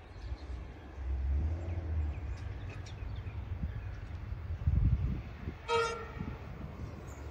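Metro electric suburban train approaching in the distance and sounding one short horn blast nearly six seconds in, over a low rumble.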